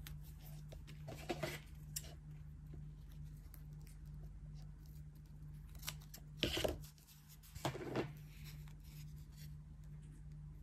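Hands handling a satin ribbon and a roll of double-sided tape: a few short rustles and clicks, the loudest two about two-thirds of the way through, over a steady low hum.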